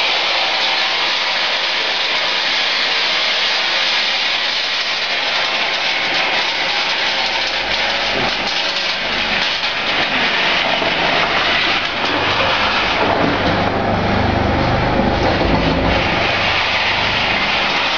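Peanuts tumbling and rattling in the turning drum of a nut roaster, a steady dense rattle over machine running noise. A low hum grows stronger in the second half.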